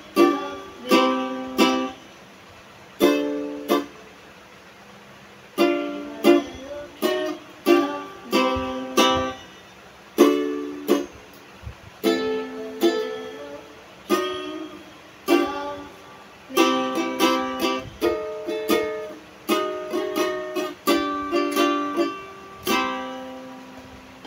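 Solo ukulele playing an instrumental tune in short phrases of plucked chords with brief pauses between them, ending near the close on a final chord that rings out and fades.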